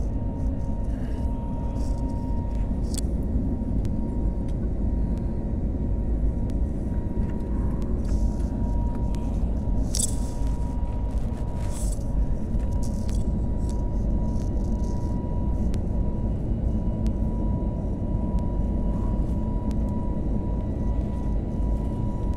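Jet engines of an Airbus A320-family airliner climbing after takeoff, heard inside the cabin: a steady deep rumble with a thin steady whine on top. A few brief faint rustles come through near the middle.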